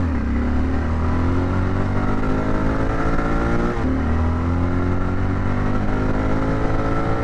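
Motorcycle engine accelerating hard, its pitch climbing steadily through one gear. About four seconds in the pitch drops at an upshift, then it climbs again in the next gear.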